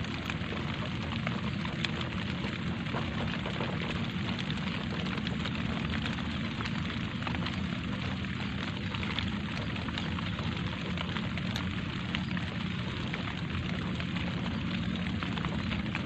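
Light rain falling steadily: a continuous hiss flecked with many small drop strikes.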